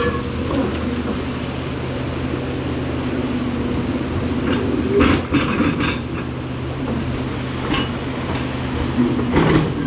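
Hydraulic excavator's diesel engine running with a steady hum, with metallic clanks from the machine working about five seconds in and again near the end.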